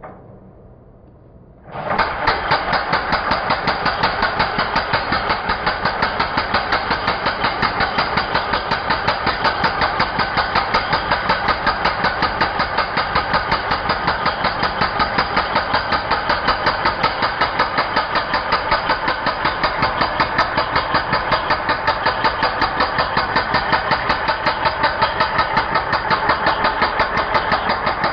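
Ingco 16 kg electric concrete breaker (demolition hammer) starting about two seconds in and then hammering rapidly and steadily.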